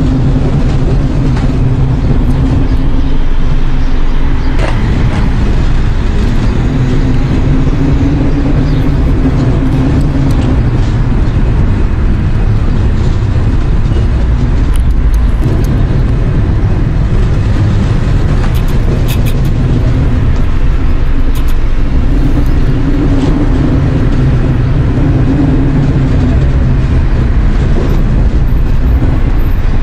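A loud, continuous low rumble with a droning hum on top that swells and fades several times, the kind of sound reported worldwide as the 'strange sounds' or 'skyquakes'.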